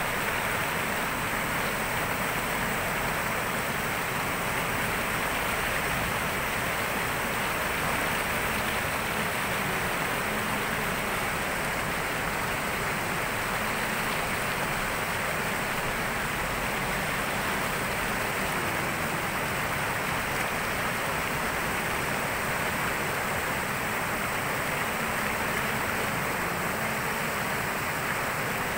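Floodwater of a swollen, muddy river rushing over rocks in shallow rapids: a steady, unbroken rush of water.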